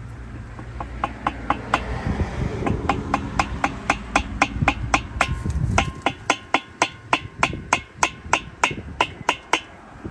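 Hammer tapping a handrail bracket through a towel in quick, even light strikes, about four a second, to turn it the last quarter turn tight onto its post. The taps stop shortly before the end.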